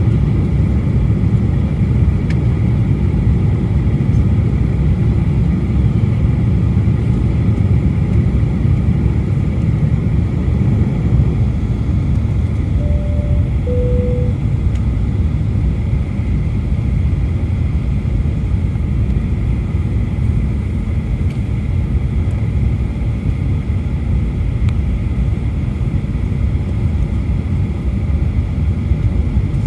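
Steady low rumble of engine and airflow noise inside a Boeing 737 airliner cabin on final approach, with flaps and landing gear extended.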